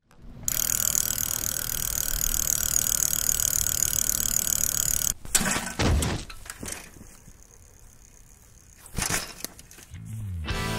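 Logo-intro sound effects: a steady whirring hiss that cuts off suddenly about five seconds in, followed by a few sharp hits and whooshes, and music beginning near the end.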